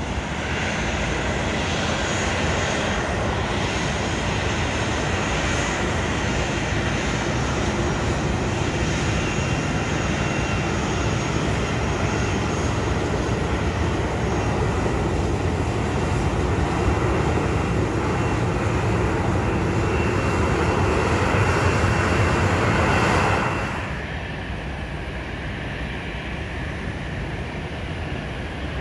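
Airliner engines running, a steady loud noise that builds gradually, then drops off abruptly about 23 seconds in.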